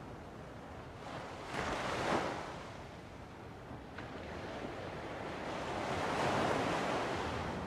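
Ocean surf: waves washing in as slow swells of hiss, one peaking about two seconds in and a longer one building near the end.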